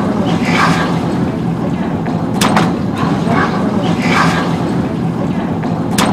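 Engine of a small motorboat running steadily with a low hum, with a sharp knock about midway and another near the end.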